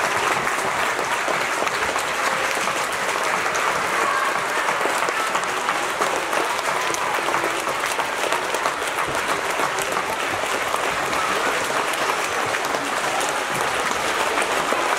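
Large audience of students and staff applauding steadily, a long sustained round of clapping in a big room.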